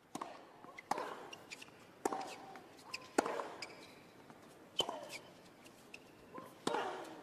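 Tennis ball bounced on a hard court before a serve: a few sharp single taps spaced a second or more apart. Near the end comes the crack of the racket striking the serve.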